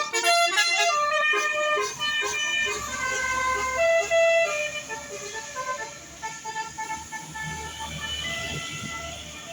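Bus telolet horn, a multi-tone musical horn on a bus, playing a quick melody of short toots. It is loudest in the first half, turns fainter about halfway through, and has a low vehicle rumble underneath.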